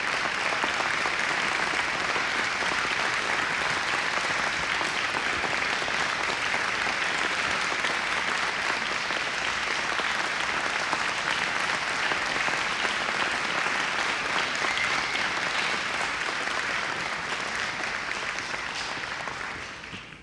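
Large audience applauding steadily for a long stretch, fading out near the end.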